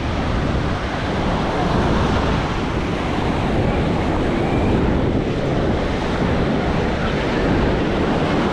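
Ocean surf breaking and washing ashore as a steady rush, with wind buffeting the microphone.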